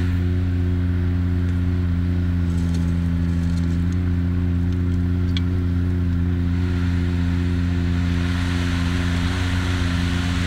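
Diesel engine of a piece of heavy plant running at a steady speed: a constant low drone, with a few faint ticks and rattles near the middle.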